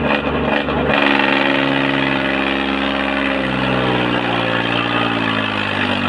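Tractor diesel engine opening up to full throttle about a second in and held there, working hard under heavy pulling load. Its pitch sags a little as it lugs.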